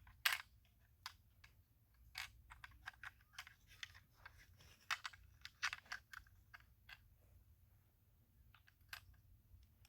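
Faint, irregular small clicks and taps of small toy-car parts being handled and fitted by hand, with one louder click just after the start.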